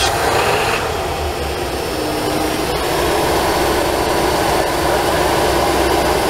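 Ford Econoline van engine just started and running steadily, heard close up with the engine cover off inside the cab. The van has a fuel delivery problem, with fuel pressure low and dropping.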